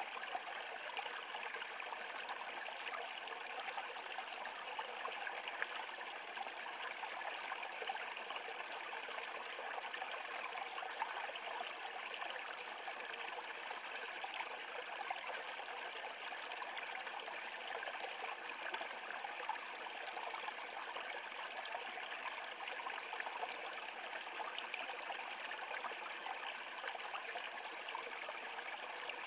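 Shallow stream running steadily over a small rocky cascade: an even, unbroken rush and trickle of water.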